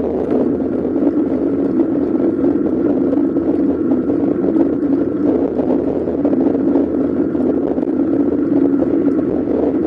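Steady wind and road noise picked up by a bicycle-mounted camera while riding, with no breaks.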